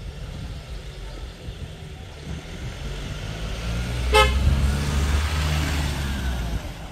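A road vehicle passing, its engine rumble and tyre hiss swelling and fading, with one short toot of its horn about four seconds in.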